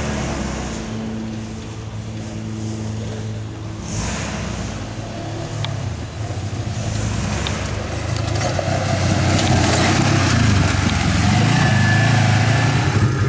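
Engine of a Polaris RZR side-by-side running as it climbs a hill trail. It gets louder from about eight seconds in, with the revs going up and down.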